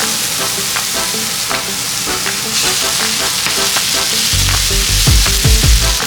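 Food sizzling in a hot pan as it is stirred, with the sizzle growing louder about halfway through. Background music plays underneath, with heavy bass coming in near the end.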